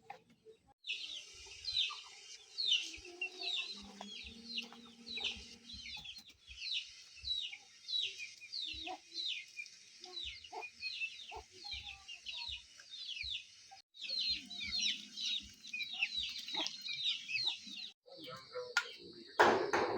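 Chicks peeping, many quick high cheeps that slide down in pitch, with a few brief breaks.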